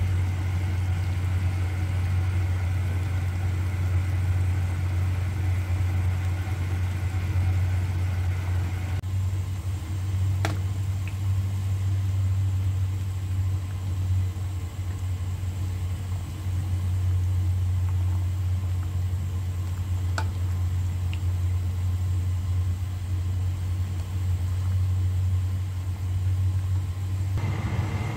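A steady low hum, with a pot of apple soup at a rolling boil on the stove. There are two faint clicks, about ten and twenty seconds in.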